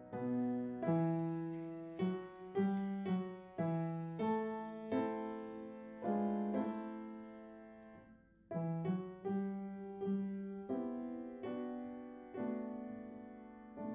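Slow solo piano music: single notes and chords are struck about once or twice a second, each dying away after it is struck. The playing nearly fades out once, just past the middle, before going on.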